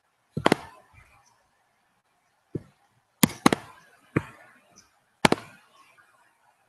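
Seven sharp knocks at irregular intervals, two of them in quick pairs, over a faint hiss.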